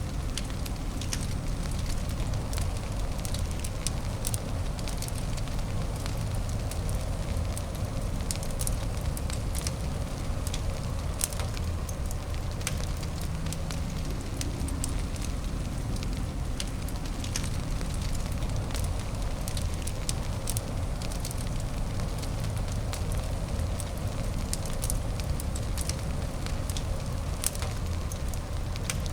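Wood fire crackling in a fireplace: frequent small pops and snaps, several a second, over a steady low hiss.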